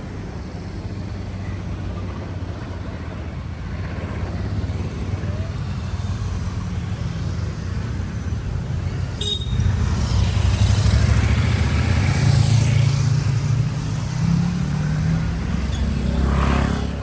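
Motor vehicle engine and road noise, a steady low rumble that grows louder about ten seconds in.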